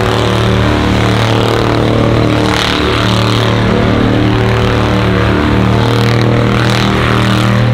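Pickup truck engine held at steady high revs during a burnout, running loud and constant over a rushing noise.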